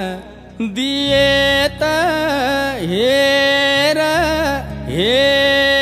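Nepali folk-style song music: a long held melody line that dips and glides back up twice, over a steady low backing.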